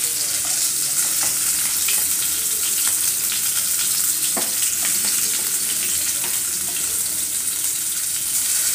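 Oil sizzling steadily in a frying pan, a dense crackle with a few louder pops, as marinated fish pieces shallow-fry.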